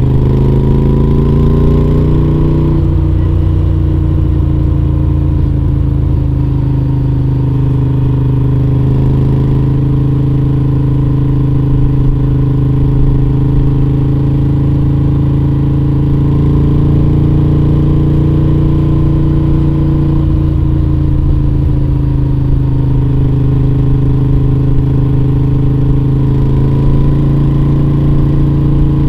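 A 2021 Moto Guzzi V7 850's air-cooled V-twin running on the move through a short conical aftermarket exhaust with the dB killers in. The pitch climbs in the first couple of seconds, then holds steady with gentle rises and falls in revs as the throttle changes.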